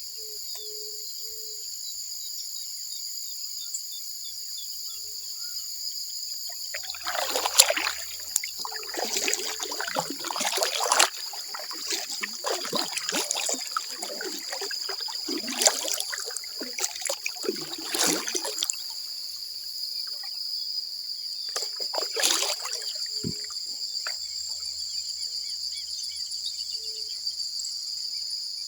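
Kayak paddle splashing and dripping in the water in a run of irregular strokes, with one more splash a few seconds later. Behind it, a steady high-pitched chorus of crickets or other insects.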